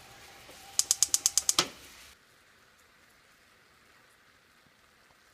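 A quick run of about nine sharp clicks, roughly ten a second, over a faint steady hiss. Just after two seconds the sound cuts off abruptly to near silence.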